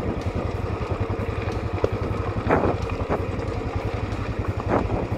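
Royal Enfield Classic 500's single-cylinder engine running steadily with an even low pulsing beat, with wind rumbling on the microphone.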